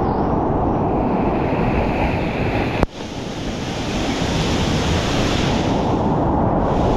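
Whitewater rapids rushing loudly, with water and wind noise buffeting the camera's microphone. A sharp click and a brief drop in level come just under three seconds in, then the rush builds back.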